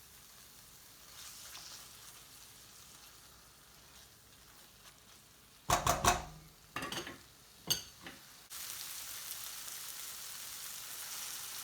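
Spice masala frying in a pan with a faint sizzle, a utensil scraping and stirring it, with a few loud scrapes near the middle. About two-thirds in, the sizzle steps up to a louder, steady hiss.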